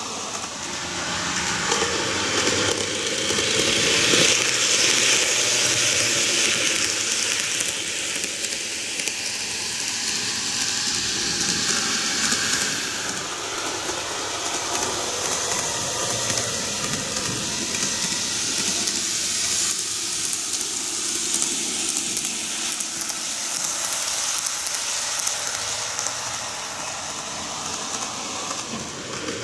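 N-gauge model train (GreenMax Kintetsu 12410 series) running on TOMIX track: a steady rolling noise of wheels and motor, loudest from about two to eight seconds in, then going on evenly.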